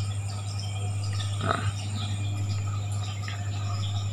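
Aquarium filter pump humming steadily, with air bubbles trickling in the water; a brief knock about a second and a half in.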